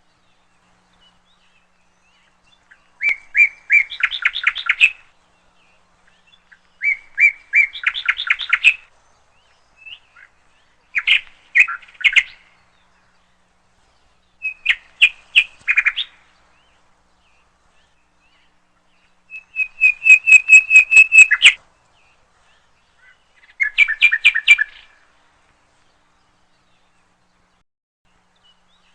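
A songbird singing six short phrases of rapid repeated chirping notes, each one to two seconds long, with pauses of a few seconds between them; the phrase about twenty seconds in is the longest and loudest.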